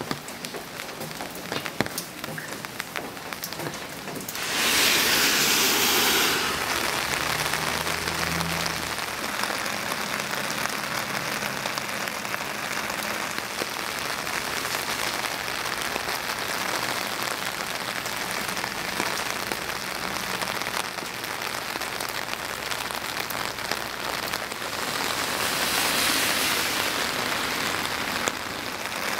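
Light rain falling steadily, a even hiss, which grows louder for a couple of seconds about five seconds in and again near the end.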